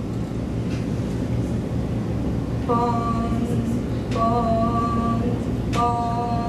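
A woman's voice sounding a steady, unwavering held note three times, about a second and a half apart, starting nearly three seconds in, over a low steady hum.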